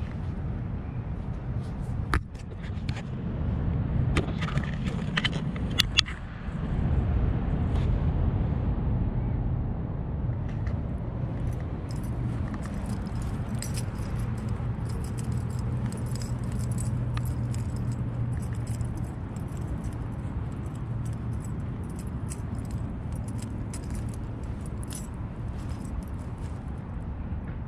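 Steady low rumble of road traffic, with light metallic jingling and clicking that sets in about twelve seconds in and keeps going after that.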